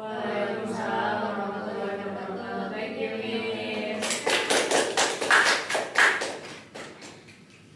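Several voices singing or chanting together for about four seconds, then a round of hand clapping that dies away near the end.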